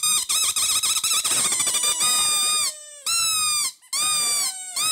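A baby squealing: a string of loud, high-pitched squeals, the first long and wavering and sliding down in pitch at its end, then three shorter ones.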